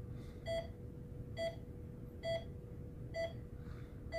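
Bedside patient monitor beeping once with each pulse, a short tone about once a second, over a faint steady hum.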